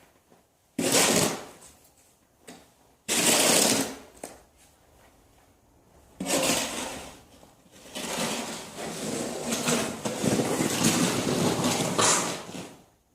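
Snow shovel scraping and pushing snow in four strokes: three short scrapes, then a long rattling scrape of several seconds near the end.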